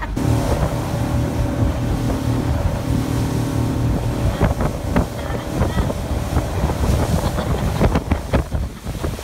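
Speedboat's outboard motor running at speed under tow load, with wind buffeting the microphone and rushing water. The engine's steady tone is plainest in the first four seconds; after that it is broken up by many short thumps.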